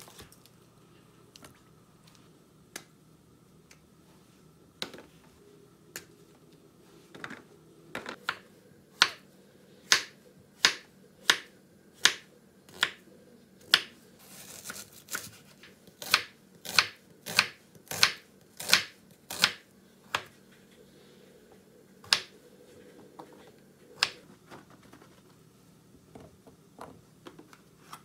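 Kitchen knife slicing button mushrooms on a wooden cutting board. A steady run of sharp knocks, about one and a half a second, comes as each stroke meets the board. Scattered softer taps come before and after.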